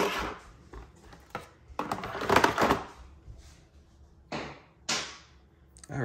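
Plastic storage compartment and drip tray of a Breville Barista Pro espresso machine being slid back into the machine's base: a sliding scrape at the start, a longer, louder one about two seconds in, then two short knocks as the tray seats.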